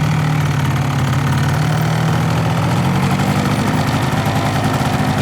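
Small vehicle engine running steadily at an even pitch, heard from on board the moving vehicle.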